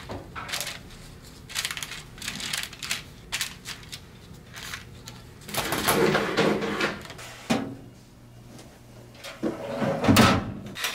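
Gloved hands setting pieces of cookie dough on a parchment-lined metal tray, with small taps and paper rustles. The tray is lifted with a longer scraping rustle about halfway through. Near the end it goes into a Wiswell countertop oven with a metal clatter as the oven door is handled.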